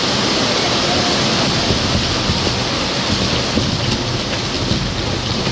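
Maltese ground fireworks (nar tal-art): spinning pyrotechnic wheels and spark fountains burning, a loud, steady hiss of sparks with faint crackling.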